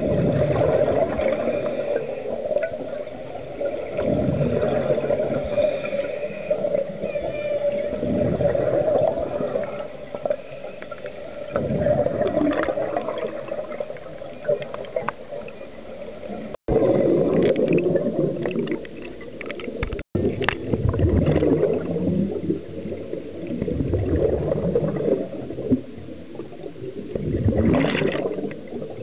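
Scuba diver's breathing heard underwater: exhaled bubbles from the regulator gurgle and rumble in bursts about every four seconds over a steady underwater hum.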